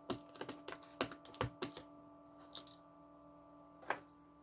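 Small, sharp clicks and taps of metal on metal as a cooled blob of solder is picked and knocked off a stainless-steel blade; the solder has not bonded to the steel. There are several clicks in quick succession over the first couple of seconds and one more near the end, over a faint steady hum.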